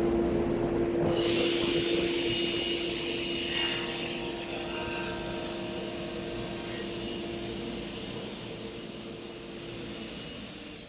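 Sliding table saw with a 250 mm, 72-tooth crosscut blade running at speed and sawing across a plywood panel. The cut is loudest from about three and a half to seven seconds in. The saw's steady running tone drops away near the end.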